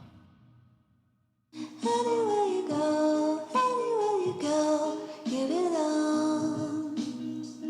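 Background music: a fade to silence, then about a second and a half in a song starts, a female voice singing over guitar.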